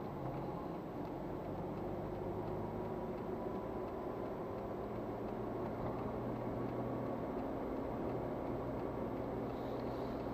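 Engine and tyre noise of a moving car heard from inside its cabin, a steady drone.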